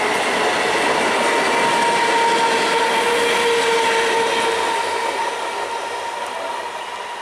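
Electric multiple unit passenger train running on the track: a dense rumble of wheels and carriages with a steady whine over it, fading over the last couple of seconds.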